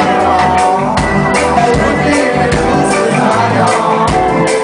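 Live band playing, with a steady drum beat about twice a second under bass and sustained pitched instrument notes.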